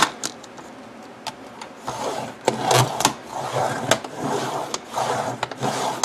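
Fiskars sliding paper trimmer cutting a plastic cutting mat: a few sharp clicks, then from about two seconds in a scraping rasp in several strokes as the blade carriage is pushed along the rail, with clicks among them.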